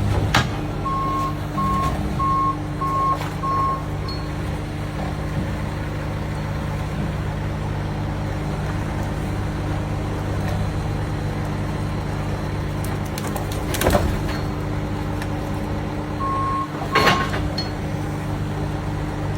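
Heavy hydraulic machine running with a steady low hum. Five short warning beeps come early on and two more near the end, and two brief loud bursts of noise come about 14 and 17 seconds in.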